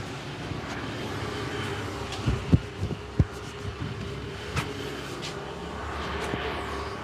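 Steady low hum of street traffic, with a few dull thumps in the middle.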